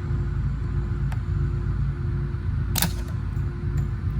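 Small metallic clicks from snap-ring pliers working the snap ring off the front cam of a Harley twin-cam engine, with one sharp snap near three seconds in. A steady low shop hum with a constant tone runs underneath.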